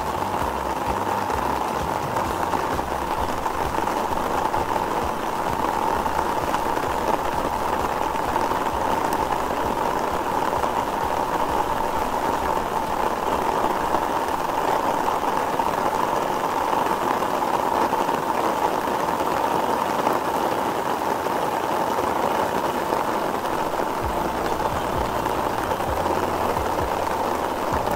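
Heavy rain falling steadily: a constant hiss of drops striking leaves and surfaces.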